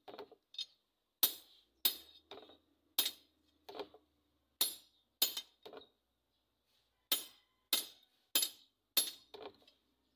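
Hand hammer striking a long Filipino bolo (talibong) blade on a small steel anvil: sharp, ringing metal-on-metal blows at about one to two a second, many followed by a lighter rebound tap. The hammering pauses for about a second around six seconds in, then resumes.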